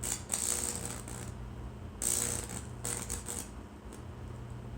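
Lichtenberg wood-burning machine's high-voltage transformer humming steadily, with several short bursts of crackling electrical arcing as it tries to burn into the wood.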